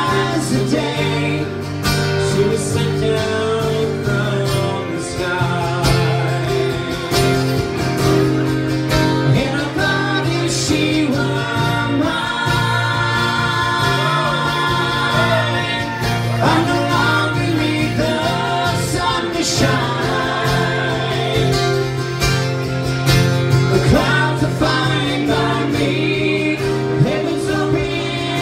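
Live acoustic band music: two acoustic guitars strumming under sung vocals and harmonies, playing without a break.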